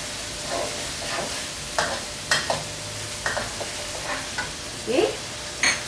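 Chilli-onion spice paste with coriander and fennel seeds sizzling in a wok on a gas stove while being stirred, a spatula scraping and knocking against the pan at irregular intervals, the sharpest stroke near the end. This is the sautéing (tumis) stage of a rendang paste.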